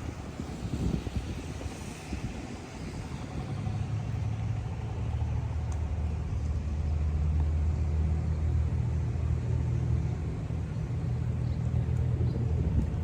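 An engine running with a low, steady drone that builds up about three to four seconds in and holds.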